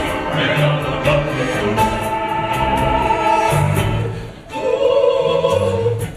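Broadway musical number: voices singing long held notes over a pit orchestra with a steady beat.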